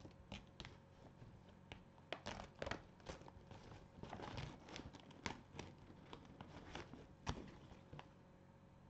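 White embroidery stabilizer being torn and peeled away from felt by hand: faint papery tearing and rustling in short bursts, with a few sharp crackles.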